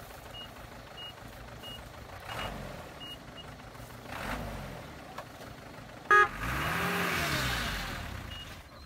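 A stuck truck's engine revving up and dropping back as it tries to drive out. A few short revs come first, then a longer rev of about two seconds, with a reversing beeper chirping about every 0.7 s. A brief loud toot about six seconds in is the loudest sound.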